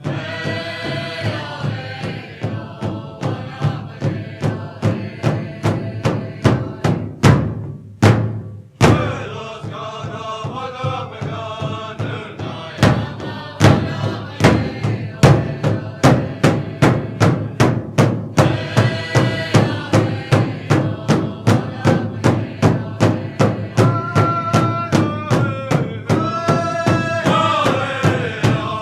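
Native American powwow-style song: a drum struck in a steady, even beat with chanting voices over it. About seven seconds in, the singing drops out for a few hard, spaced drum strikes with a brief gap, then the beat and chant resume.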